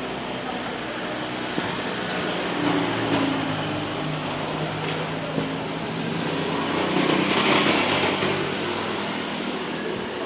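Road traffic: a motor vehicle's engine running as it passes, growing louder about seven to eight seconds in over a steady hum of traffic.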